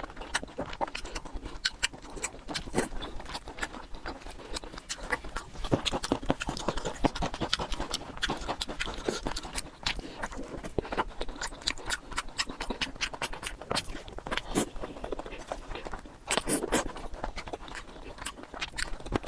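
Close-miked eating sounds: a person chewing and smacking their lips, with a rapid, irregular run of wet clicks and mouth noises.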